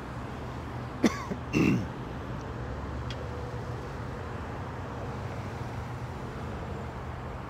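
A man clears his throat about a second in, two short rough sounds, the second falling in pitch. A steady low background hum runs underneath.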